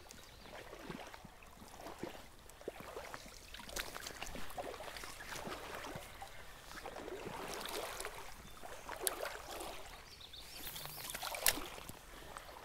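Stream water splashing and trickling in uneven swells, with a few sharp clicks, the loudest about a second before the end.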